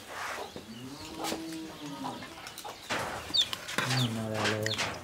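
Domestic chickens clucking, with small birds chirping briefly now and then.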